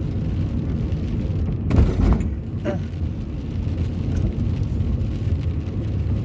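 Car road noise heard from inside the cabin: a steady low rumble, with one brief, louder rush about two seconds in.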